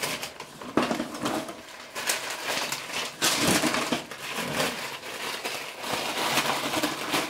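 Paper and packaging crinkling and rustling as it is handled, with a few sharp crackles; loudest a little over three seconds in.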